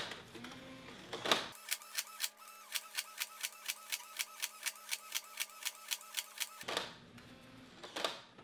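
Foam darts clicking into Nerf magazines as they are loaded, some fed by the Nerf Elite Infinus's motorized loader and some pushed in by hand, as single sharp clicks about a second apart. From about a second and a half in, the sound is played back sped up: a fast, even run of clicks, about five a second, over a steady hum. It returns to normal speed near the end.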